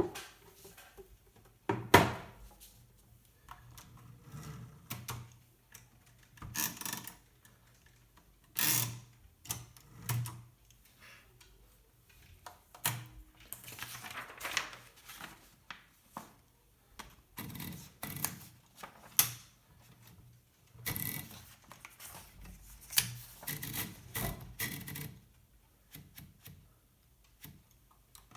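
Hermes Baby portable typewriter being worked, with irregular mechanical clacks, some single and some in quick runs, with short pauses between; the loudest single clack comes about two seconds in.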